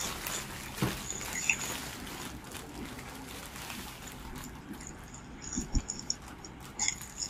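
Packaging being handled and opened: scratchy rustling with scattered small clicks and crackles, heaviest between about four and a half and six seconds in.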